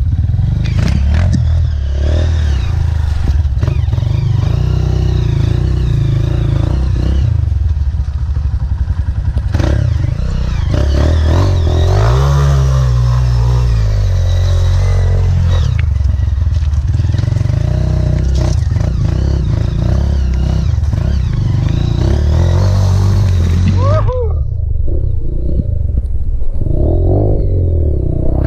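Honda CRF trail bike's single-cylinder four-stroke engine running under load, revving up and down as the throttle is worked, with clattering knocks from the bike over rough ground.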